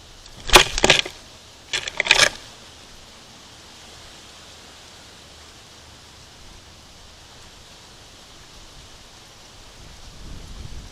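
Steady hiss of a trail camera's microphone, broken by two short, loud bursts of noise about half a second and two seconds in.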